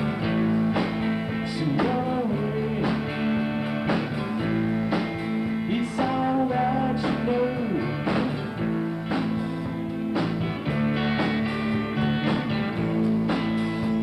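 Live rock band playing: electric guitars and bass over a steady drum beat, with a male lead vocal sung into the microphone.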